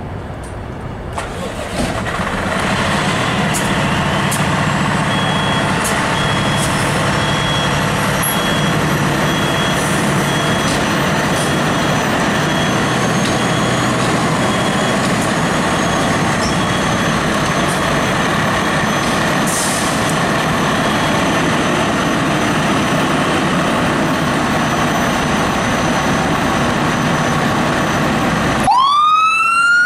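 Fire engine's Detroit Diesel Series 60 engine running steadily, coming in loud about a second in, with a high-pitched beep repeating for much of the time. Near the end a siren starts, its wail rising.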